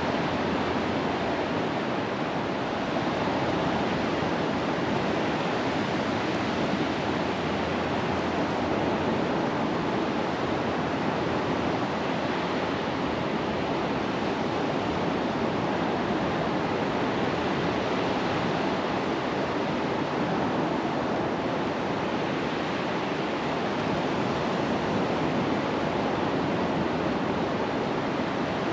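Surf breaking on a sandy beach, a steady rush of waves with no breaks or distinct events.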